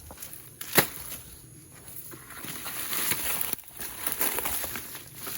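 A single sharp knock about a second in, then uneven crackling and rustling of wood and undergrowth being moved through or handled.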